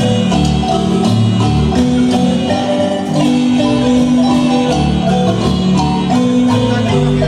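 Guatemalan marimba band playing a tune through the PA during a sound check: quick mallet notes on the marimba over a line of low bass notes.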